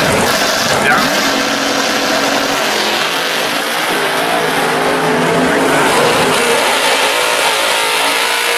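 Drag cars' engines running at the start line, with a first-generation Chevrolet Camaro drag car in the water box; the revs rise and fall as it readies for its burnout.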